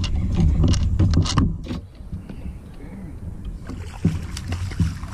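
Knocks and rumbling handling noise on a small boat as an angler fights a hooked bass, then the fish splashing at the surface beside the boat near the end.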